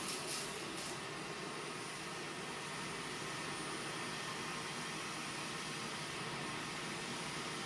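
Vacuum cleaner running with a steady whooshing drone, with a few brief clicks in the first second.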